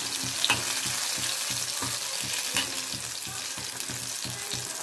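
Batter-coated cauliflower bajji deep-frying in hot oil, a steady sizzle. A few light clicks come from the slotted metal ladle turning the fritters in the pan.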